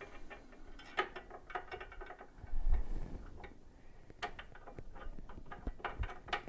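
Irregular metal clicks and ticks of a hex key working the screws of a resin 3D printer's build-plate bracket, with a heavier knock about two and a half seconds in.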